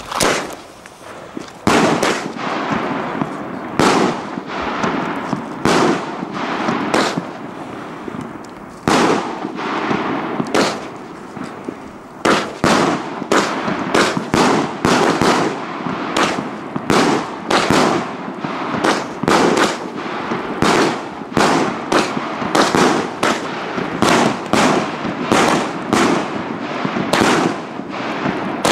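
El Gato salute cakes firing: tube after tube launches a shell that bursts with a sharp bang. At first the bangs come about every second, then from about halfway they quicken into a dense string of about two a second.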